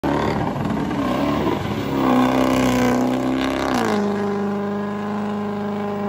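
Engine sound effect: revving with a wavering pitch, then the pitch drops a little before four seconds in and settles into a steady drone.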